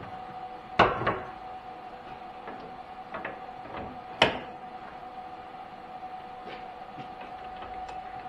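Metal-on-metal clanks from a tool holder being swapped onto a lathe's quick-change tool post: two sharp, ringing clanks, about a second in and just after four seconds, with lighter clicks between, over a steady hum.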